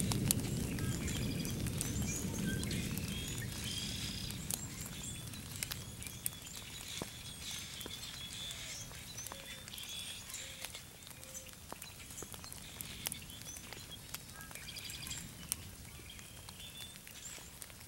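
A thunder rumble dies away over the first few seconds. After it, rain drips and patters in scattered ticks, with birds chirping now and then.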